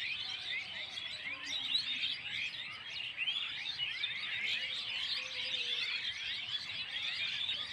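A large flock of birds chirping all at once: a dense, unbroken chorus of many short, high, overlapping calls.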